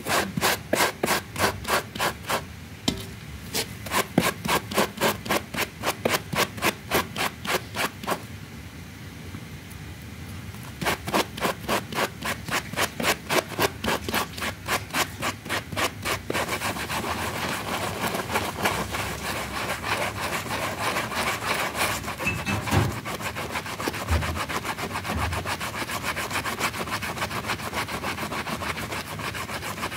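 Rug being scrubbed by brush in quick back-and-forth strokes, about three a second, with a pause partway through; later the scrubbing turns into a denser, steady rubbing.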